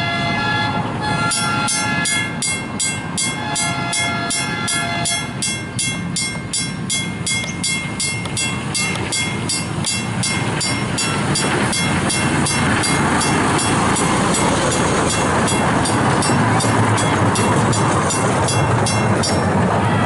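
Western Railroad Supply mechanical level-crossing bell ringing at about three strokes a second, stopping just before the end. A train horn sounds twice in the first five seconds, each blast about two seconds long. The rumble of the train grows from about halfway through as it approaches.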